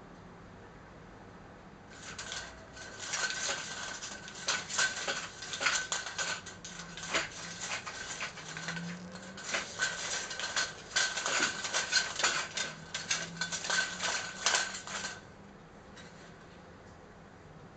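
Venetian blind slats rattling and clattering as a cat paws at them and pushes between them, a dense run of quick clicks starting about two seconds in and stopping near the end.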